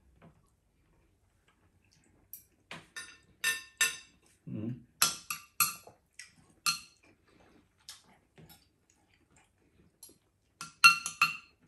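Metal spoon and fork clinking and scraping against a ceramic plate and bowl while eating: scattered sharp clinks with a short ring, the loudest cluster near the end.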